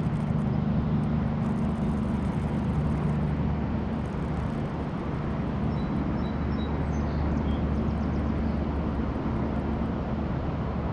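A steady low engine drone, like a motor vehicle running nearby, its pitch dropping about four seconds in.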